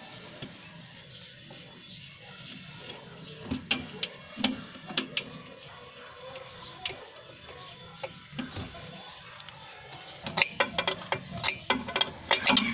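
Sharp metallic clicks of a wrench on a brake line fitting at the brake master cylinder: a few scattered clicks, then from about ten seconds in a quick run of clicks as the wrench works the nut.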